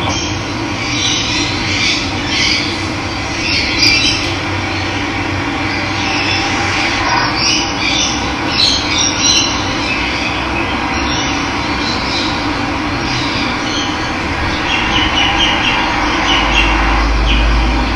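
Steady rush of running water with birds chirping and calling over it in short scattered bursts. A low rumble comes in near the end.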